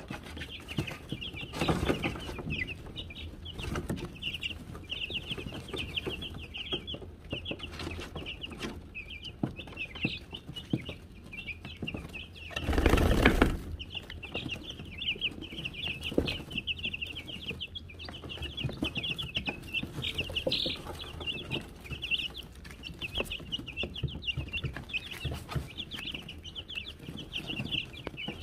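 A brood of Wyandotte chicks peeping continuously, many short high chirps overlapping, with light ticks and rustles from the wood-shavings bedding. Near the middle a loud rustling burst lasts about a second.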